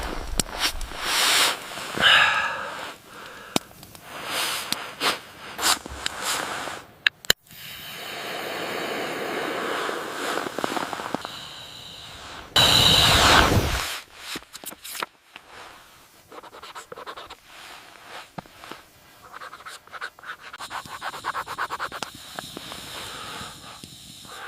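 Crackling and popping with rustling and scraping noises, and a louder rushing noise about halfway through.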